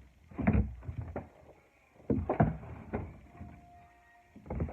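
Plastic toy railway pieces and their packaging being handled: about five short, irregular knocks and rustles.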